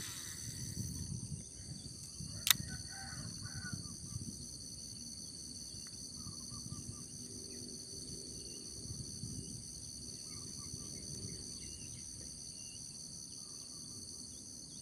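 Steady high-pitched insect chorus of several even tones, over a low rumble, with one sharp click about two and a half seconds in.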